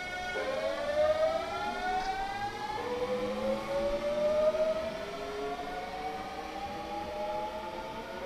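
Hankyu 8000 series electric train's VVVF inverter and traction motors whining as the train accelerates. The pitch drops suddenly about a third of a second in, shifts again near three seconds, and otherwise rises steadily.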